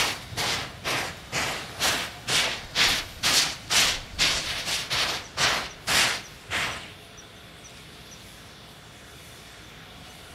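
Steam locomotive C12 66 chuffing as it works away from a station, about two sharp exhaust beats a second. The chuffing stops abruptly about seven seconds in, leaving a faint hiss.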